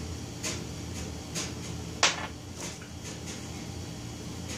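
Light clicks and taps from a small cast-aluminium engine bed being handled on a workbench, about five of them with the sharpest about two seconds in, over a steady low hum.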